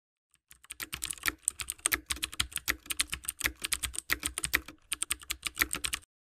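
Computer-keyboard typing sound effect: rapid keystroke clicks that run on with a brief pause about five seconds in, then stop shortly before the end.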